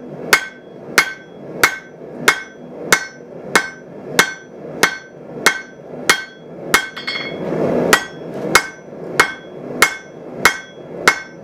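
Hand hammer striking a hot pattern-welded (Damascus) steel billet on the anvil in steady blows, about one and a half a second, each with a short metallic ring, with one brief gap about seven seconds in. This is the forge-welded billet being drawn out by hand.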